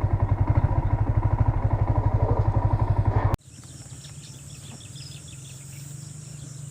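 Engine idling with an even, rapid beat, cut off abruptly about three and a half seconds in. After that comes a faint steady low hum with high-pitched chirping.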